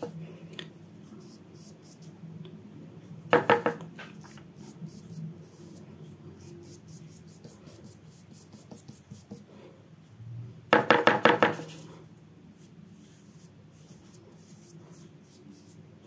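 A paintbrush rattling quickly against a hard container, in two short bursts: one about three seconds in and a longer one around eleven seconds. Between them, faint brush strokes rub on paper.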